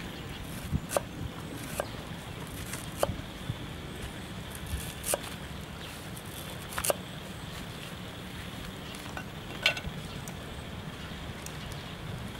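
A cleaver slicing garlic on a round wooden chopping block gives about ten sharp knocks, spaced irregularly a second or more apart, over a steady low background noise.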